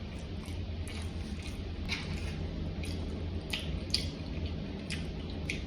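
A person chewing a mouthful of coconut rice close to the microphone: soft, wet mouth clicks and smacks scattered through, over a steady low hum.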